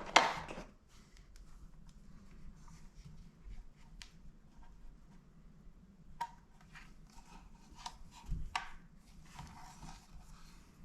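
Packaging and a small solar panel being handled: a loud rustle that ends within the first second, then faint scattered rustles and light ticks and knocks.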